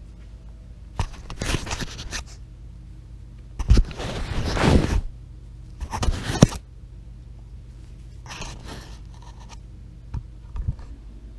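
Scraping and rubbing right on the phone's microphone as the camera lens is wiped clean, in four bursts of a second or so, with two short taps near the end.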